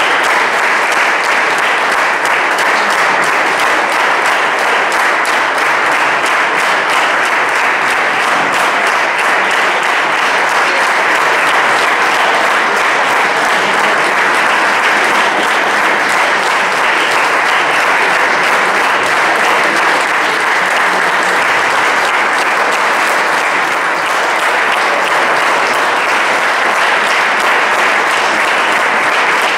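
Audience applauding: a dense, steady mass of hand claps that keeps on without a break.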